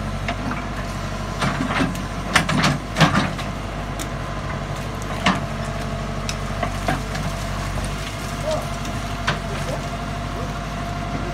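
Backhoe loader's diesel engine running steadily with a thin steady higher tone over it, while its digging arm works. Several sharp knocks and clanks stand out, the loudest about three seconds in.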